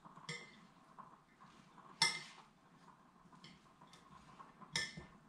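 A spoon clinking against a glass mixing bowl while stirring chopped salsa: three sharp, ringing clinks about a second and a half to three seconds apart, the middle one loudest, with a few softer taps between.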